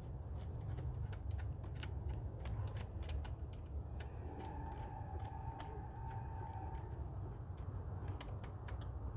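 Light, irregular metallic clicks of a hand wrench working the nut on a car battery's terminal clamp, over a steady low rumble. A faint steady tone sounds for a couple of seconds midway.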